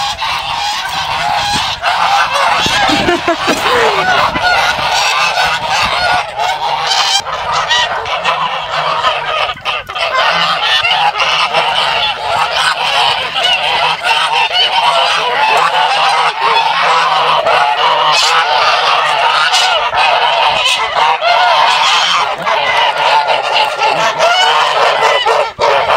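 A flock of domestic geese honking without a break, many calls overlapping.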